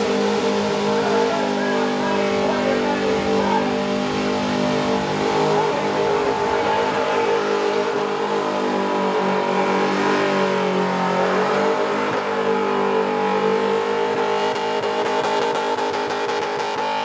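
V8 burnout car's engine held at high revs with the rear tyres spinning, a steady, loud note over a hiss of tyre noise. The revs sag briefly about ten seconds in and climb straight back.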